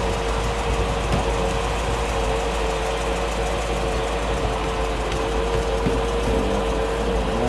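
1955 Chevrolet Bel Air's Power Pack V8 idling steadily, with a constant low hum.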